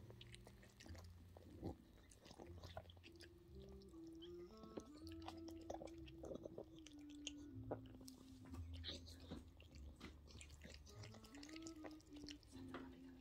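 Wet licking and smacking of a Yorkshire terrier's tongue and mouth working at a newborn puppy's amniotic sac: many small, irregular clicks and slurps as she breaks open and cleans the sac.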